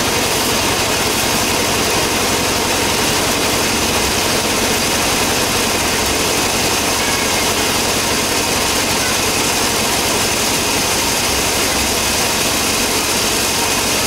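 Truck-mounted sawmill running steadily, its engine and saw going without a break as coconut-wood planks are fed through and cut.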